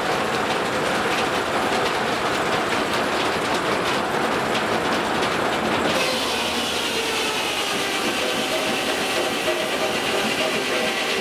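Steam-driven sawmill's large circular saw cutting through a log on the moving carriage, a dense rattling rush. About six seconds in the cut ends and the blade spins free with a steady whine of several tones while the carriage runs back.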